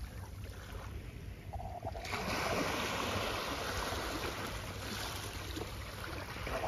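Small sea waves washing over shoreline rocks and kelp, louder from about two seconds in and then slowly easing.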